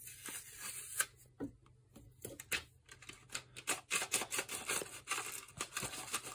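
Adhesive tape being peeled off the end of 120 roll film with scattered crackles. About halfway in, it gives way to the plastic developing-tank reel's halves being twisted back and forth, ratcheting in quick runs of clicks as the film is wound onto the spiral.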